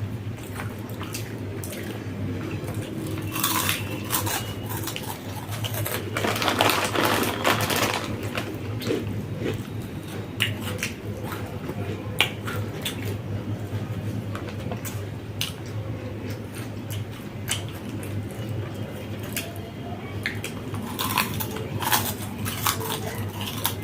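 Scattered clicks and clinks of plates and spoons while people eat, with a louder scratchy stretch about six to eight seconds in.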